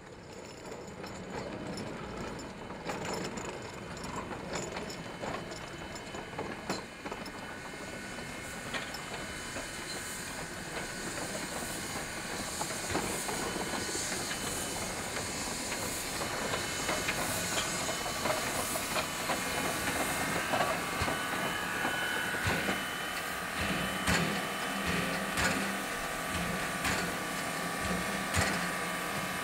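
Sierra Railway No. 2 steam locomotive running along the track, its steam hissing steadily, with scattered clicks and knocks from the wheels on the rails. It grows gradually louder.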